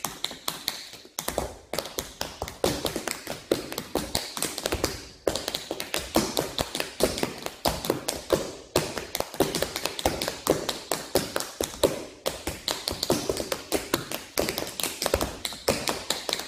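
Two dancers tap dancing in tap shoes on a hard polished floor, without music: fast, dense strings of sharp taps, with brief breaks between phrases every three to four seconds.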